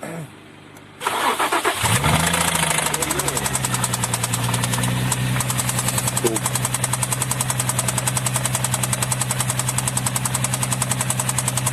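Infiniti FX35's 3.5-litre V6 cranked and started about a second in, then idling with a rapid, even knock. The knock is apparently a connecting-rod knock from the fourth cylinder: teardown found a damaged rod and a spun bearing.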